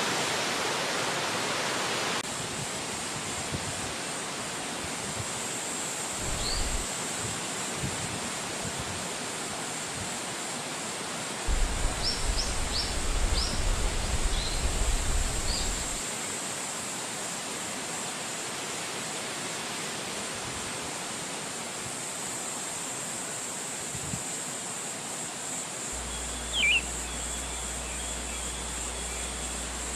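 Steady rush of wind through forest trees. A few short, high bird chirps come through, in a cluster about halfway and again near the end, with low gusty rumbles in between.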